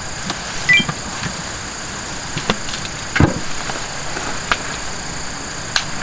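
A few light clicks and knocks of things being handled, with one heavier thump about three seconds in, over a steady high-pitched drone of insects.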